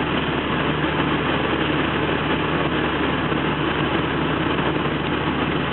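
Steady in-cabin drone of a VW Golf turbo diesel cruising on the highway: a low engine hum under a constant hiss of tyre and road noise.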